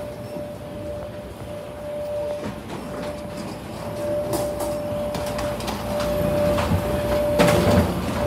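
Suitcase wheels rumbling and rattling along a jet bridge floor, with footsteps and a louder clatter about seven seconds in. A steady high whine sounds over it and drops out briefly now and then.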